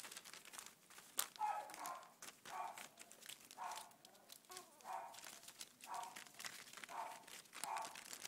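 Young beagle puppies yipping in short, high calls about once a second, over the crinkle of newspaper and the patter of small paws.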